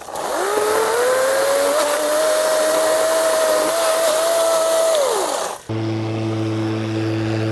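EGO 56-volt cordless hedge trimmer's electric motor spinning up with a rising whine, running steadily, then winding down about five seconds in. A steady low hum follows.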